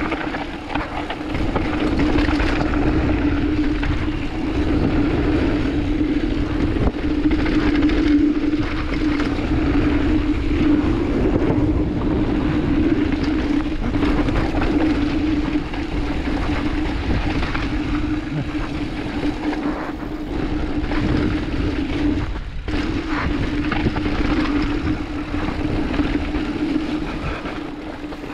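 Giant Reign mountain bike descending a dirt and stone trail, heard from a camera mounted on the rider or bike: tyre and wind noise with the bike rattling, under a steady buzz.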